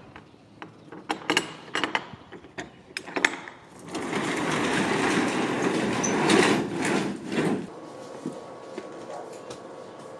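Sharp clanks and knocks for the first three seconds or so, then a U-Haul box truck's rear roll-up door rattling along its tracks for about three and a half seconds, stopping near the end.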